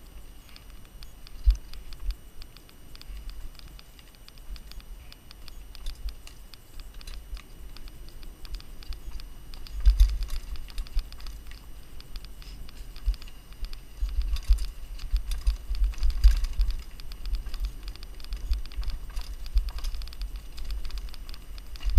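Mountain bike riding fast down a dirt singletrack: tyres rolling over dirt and dry leaves, with a steady fast clicking and rattling from the bike and low thumps as it jolts over bumps. A sharp knock comes about a second and a half in, a heavy jolt about halfway through, and a rougher run of repeated thumps a little later.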